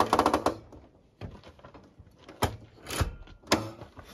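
Fiat Panda handbrake lever ratcheting as it is pulled up, a rapid run of clicks lasting about half a second, then several separate metallic knocks from the handbrake mechanism. The handbrake barely holds the rear wheels, which the owner puts down to badly adjusted cables underneath.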